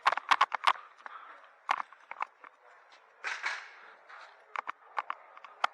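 Airsoft guns firing: a quick burst of about five sharp shots near the start, then single shots scattered through the rest.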